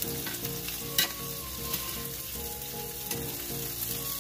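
Vegetables sizzling in a hot cast-iron skillet as a utensil stirs them, with a few sharp clicks of the utensil against the pan, the loudest about a second in.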